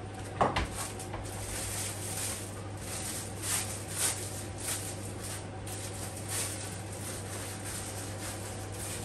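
A sharp kitchen knock or clatter about half a second in, then the crinkling and rustling of a plastic bag being handled, over a steady low hum.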